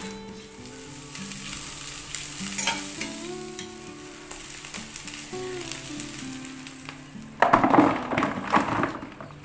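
Food sizzling as it fries in a hot pan, with a louder burst of sizzling and stirring for a second or two near the end. Soft background music plays underneath.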